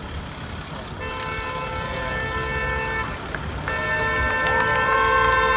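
Car horns sounding long held blasts, starting about a second in and again after a short break, over the low rumble of street traffic.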